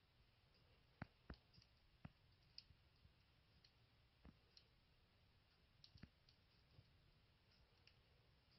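Faint, irregular sharp clicks of a dwarf hamster nibbling and cracking a snack, the loudest about a second in.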